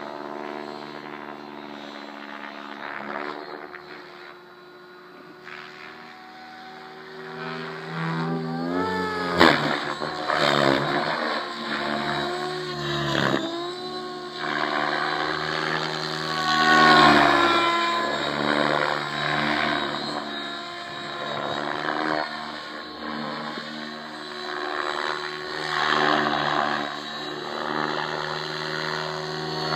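JR Propo Forza 700 electric RC helicopter flying 3D aerobatics: its main rotor and electric motor make a steady pitched whir that swells and fades and bends up and down in pitch several times as it manoeuvres, loudest about 17 seconds in.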